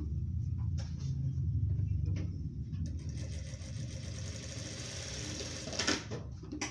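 Industrial straight-stitch sewing machine running steadily, stitching through the layered fabric of a patchwork rug. A few sharp clicks come through, the strongest near the end.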